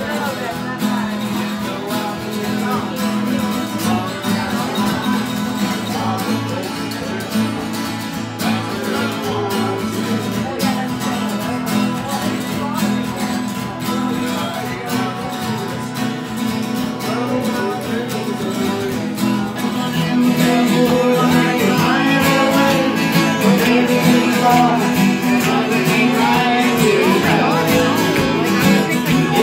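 Three acoustic guitars playing a country tune together, strummed and picked. The playing grows louder about twenty seconds in.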